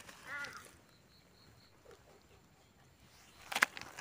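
Dry leaf litter crackling sharply as a gloved hand digs a mushroom out of the forest floor, the loudest part near the end. Just before that there is a short wavering call at the very start and four faint high bird chirps about a second in.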